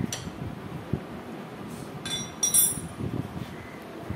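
Metal tools and parts clinking against a Tata Intra V30 gearbox casing during assembly: a few light taps, then louder, ringing metallic clinks a little past two seconds in.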